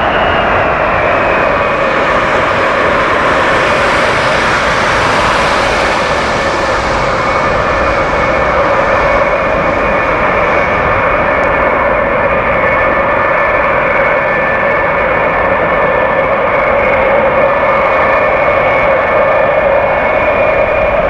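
Boeing E-8C's four TF33 turbofan engines running at taxi power: a loud, steady jet roar with a high whine that settles slightly lower in pitch in the first second, then holds level.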